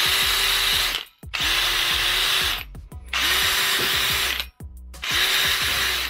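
Cordless drill boring into the timber door jamb to enlarge the latch hole for a new strike plate. It runs in four short bursts of about a second each, the motor pitch rising as it spins up and dropping as it stops.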